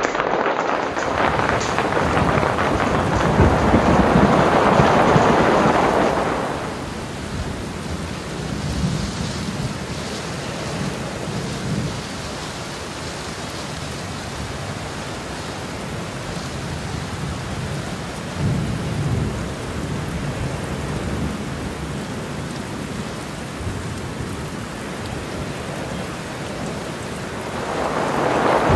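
Hail and rain drumming on a yurt's fabric roof in a hailstorm. It is heavy for the first six seconds or so, then eases to a steadier, softer patter with a few low rumbles, and grows heavy again near the end.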